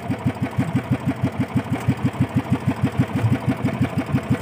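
Small outrigger fishing boat's engine idling, an even chugging of about eight beats a second.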